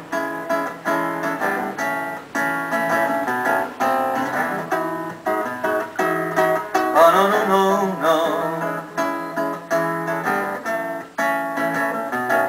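Acoustic guitar played by plucking, a run of single notes and chords closing out a slow ballad.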